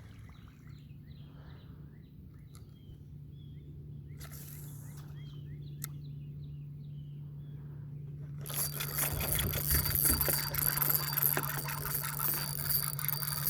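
Small birds chirping over a steady low hum. About two-thirds of the way through, a louder, continuous rushing noise takes over.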